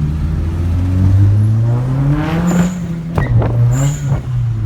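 Volkswagen Jetta GLI's turbocharged 2.0T four-cylinder engine accelerating hard, its pitch climbing over the first two and a half seconds, then dropping about three seconds in with two short high hisses. It is pulling strongly on freshly installed ignition coils and spark plugs.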